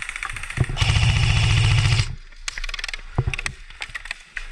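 Airsoft electric gun firing on full auto: a fainter rapid rattle at first, then a loud burst of about a second, the loudest sound. After it come a few scattered sharp clicks and snaps.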